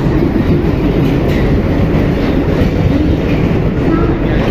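A diesel-hauled passenger train passes close by as it pulls in along the platform: two diesel locomotives, the lead one a WDM-3D, go by with a loud, steady low rumble, then the passenger coaches roll past.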